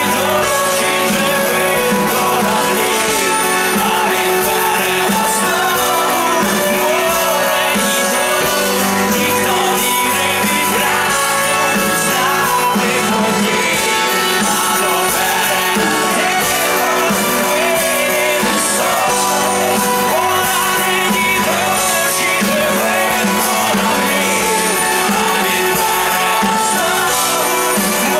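Live pop-rock band playing through a concert sound system: a male lead singer sings in Ukrainian over bass guitar, drums and keyboards.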